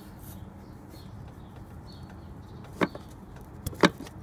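A few sharp metal clicks from a pry tool working under the 42RE transmission's kickdown lever to lever it off its shaft: one about three seconds in, then two close together near the end, the last the loudest.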